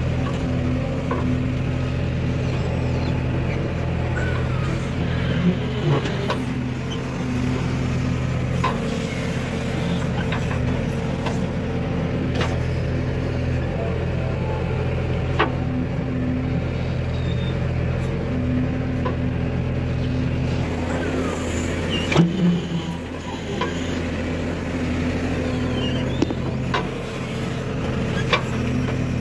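Heavy diesel engine running steadily, with scattered clanks and clicks over it; the engine note dips briefly a little over two-thirds of the way through.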